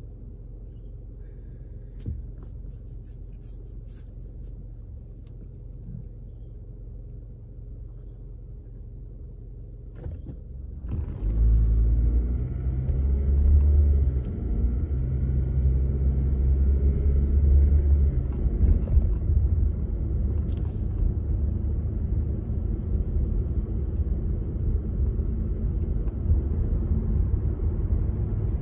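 Car cabin while stopped: a quiet, steady low hum. About eleven seconds in the car pulls away, the low engine and road rumble growing loud as it accelerates, then settling into a steady rumble of driving.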